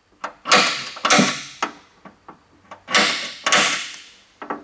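Spring-loaded automatic center punch snapping into spot welds on the truck's cab-corner sheet metal, marking their centers for drilling. Four loud metallic snaps come in two pairs about half a second apart, each dying away quickly, with lighter clicks between them.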